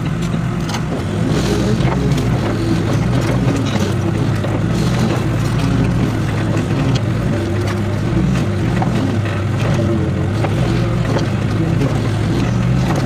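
Excavator's diesel engine running steadily under load, with occasional short knocks.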